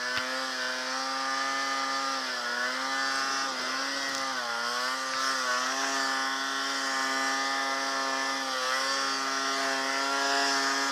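Snowmobile engine held at high, steady revs while the sled pushes through deep powder snow, with a few brief dips in revs. Near the end the revs drop away as it cuts off.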